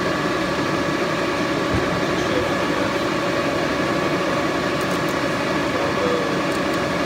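A Bullard vertical turret lathe running: a steady mechanical hum with a thin, even whine over it.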